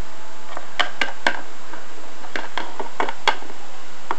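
Irregular light clicks and taps of small plastic toy figures and furniture being handled, about ten in all, over a steady hiss.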